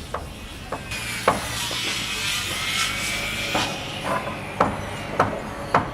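Construction-site noise: about eight irregular knocks like hammer blows, with a stretch of scraping noise from about one second in to past three seconds.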